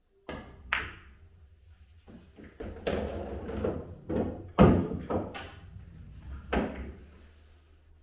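A pool cue tip strikes the cue ball with a sharp click, followed by a series of knocks and thuds from the balls and their handling on the table, the loudest about four and a half seconds in.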